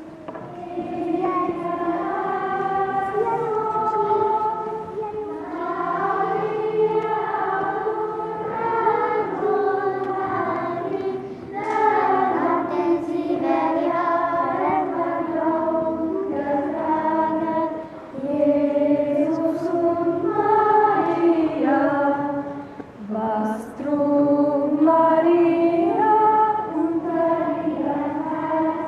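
A choir of voices singing a slow melody in phrases, with held notes and short breaks between lines.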